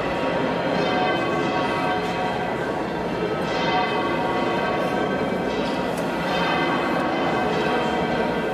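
Church bells pealing: a dense, continuous jumble of overlapping bell strikes and ringing tones.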